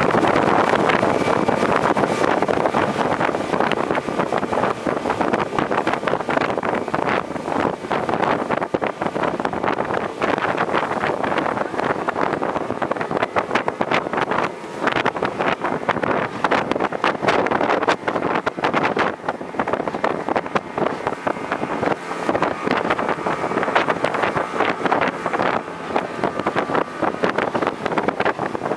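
Speedboat under way, heard from on board: steady engine noise mixed with rushing water and wind buffeting the microphone, with frequent short sharp knocks.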